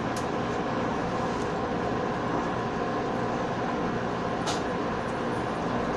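Running noise of a JR West 117 series electric train heard from on board as it rolls along the depot tracks: a steady rumble with a hum of several tones, and two short clicks, one near the start and one about four and a half seconds in.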